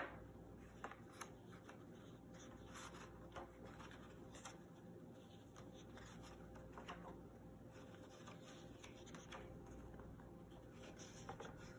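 Faint rustling and soft flicks of paper pages being turned in a hardcover picture book, with a few scattered light ticks.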